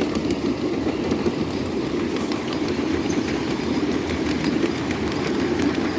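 Ride-on live-steam train behind a coal-fired PRR N2sa locomotive rolling downhill: a steady rumble of the wheels on the track with scattered clicks as the wheels pass over rail joints.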